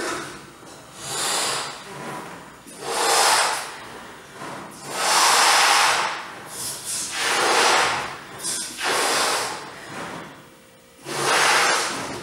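A person inflating a latex balloon by mouth: about six long, forceful breaths blown into it, each lasting around a second, with quieter in-breaths between.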